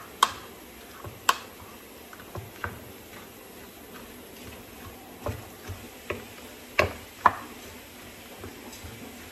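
Wooden spoon stirring a creamy fruit salad in a glass baking dish, knocking against the glass in irregular sharp taps, the two loudest close together about seven seconds in.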